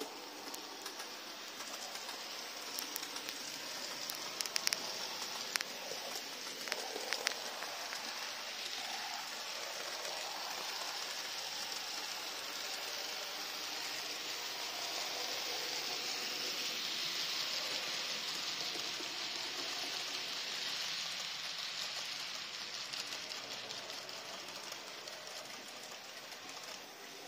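TT 120 model Peak class diesel locomotive hauling coaches: a steady whir and rattle of the model's motor and wheels on the track, with a few sharp clicks in the first several seconds. It grows louder towards the middle and fades near the end.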